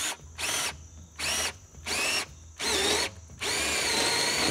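Ryobi cordless drill driving a paddle (spade) bit into the rubber sidewall of a tractor tire. The motor runs in about five short trigger pulls, each spinning up with a rising whine, the last one the longest.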